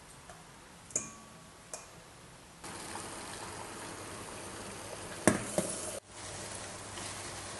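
A spoon clinks twice against a stainless steel mixing bowl as solid shea butter and coconut oil are scooped in. Then a steady watery hiss from a stainless double boiler heating, with one sharp metallic clank about five seconds in.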